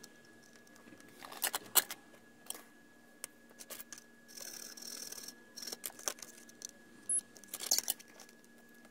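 Workbench handling sounds: scattered clicks and knocks of tools and a circuit board being picked up and moved, with a short rubbing scrape about halfway through, over a faint steady hum.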